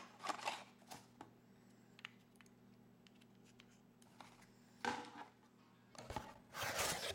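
Cardboard packaging and a power cord being handled: short scrapes and rustles of a small box's flaps, with a few light clicks and a quiet stretch in the middle.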